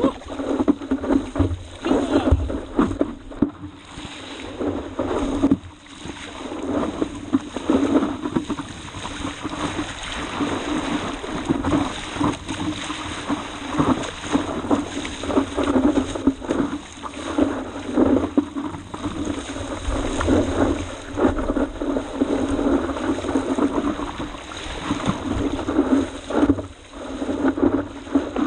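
Sea water rushing and splashing around a 12'6" downwind stand-up paddleboard as it is paddled through choppy water, coming in uneven surges.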